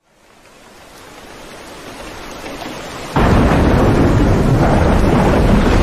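Recorded rain and thunder: rain hiss fading in, then about three seconds in a loud thunder rumble breaks in suddenly and carries on over heavy rain.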